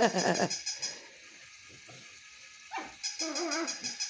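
A battery-powered moving plush toy runs with a rapid, even clicking of about eight a second. The clicking stops about half a second in and starts again about three seconds in. Short wavering squeals come with it near the start and again about three seconds in.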